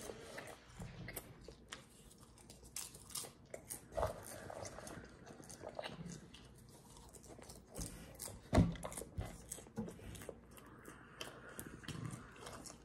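A person chewing and crunching a mouthful of salted butter popcorn, with scattered irregular crunches and a louder one about two-thirds of the way through.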